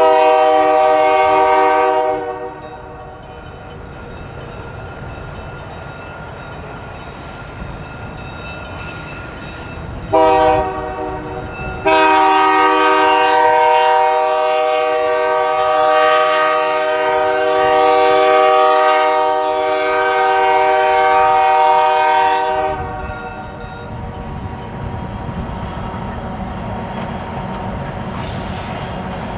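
Diesel locomotive air horn sounding several notes at once: a two-second blast, a short blast about ten seconds in, then one long blast of about ten seconds. A steady rumble from the train fills the gaps.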